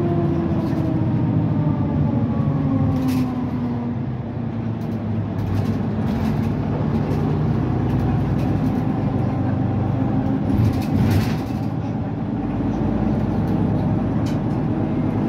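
Mercedes-Benz Citaro C2 city bus with its Mercedes OM936 diesel engine running on the move, the engine note falling over the first four seconds or so and then holding steady. A few brief knocks or rustles come through around the middle.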